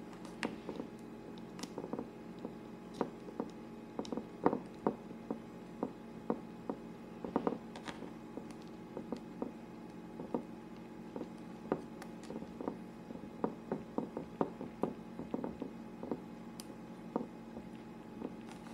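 Hands folding and pressing raw pastry edges over a filled tartlet: many irregular soft taps, clicks and squishes, the loudest about four and a half seconds in, over a steady low hum.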